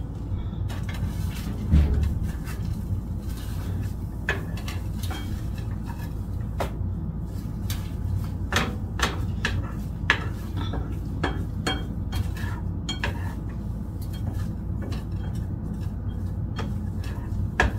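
Slotted spatula stirring and scraping eggs in a skillet, with irregular clicks and scrapes against the pan over a steady low hum.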